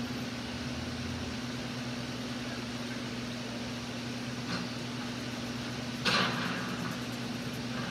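Steady low mechanical hum with a constant hiss, with a brief rustle about six seconds in.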